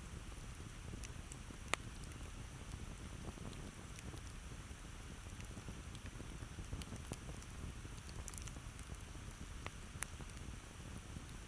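Campfire burning: scattered sharp crackles and pops of burning wood over a low steady rumble, the loudest pops coming about two seconds in and near the end.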